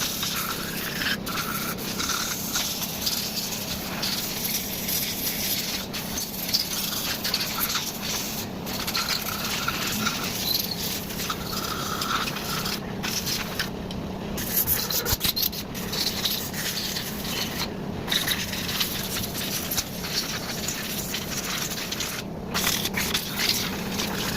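Compressed-air blow gun hissing, stopping and starting briefly several times, as it blows water off freshly washed engine parts to dry them.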